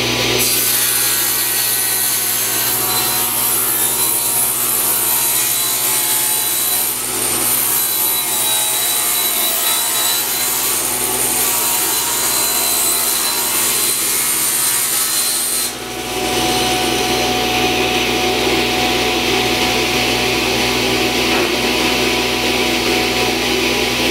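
Table saw ripping a long solid-wood board: the blade cuts through the wood with a steady hiss over the motor's low hum. About 16 s in, the sound shifts, and the high hiss gives way to a lower, coarser cutting noise.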